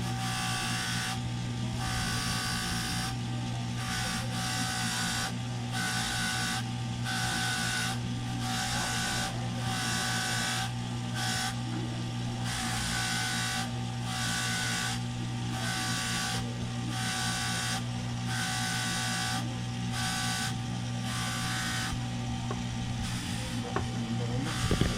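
Small electric motor running steadily, with a higher hissing grind that cuts in and out in short spells of about a second, as work is pressed against it and lifted off.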